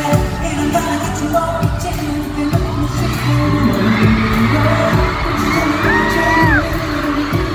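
Live K-pop song over an arena sound system: singing over a pop backing track with a low, thudding beat.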